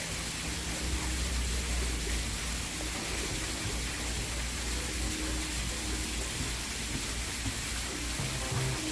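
Steady rush of running water from a mini golf course water feature.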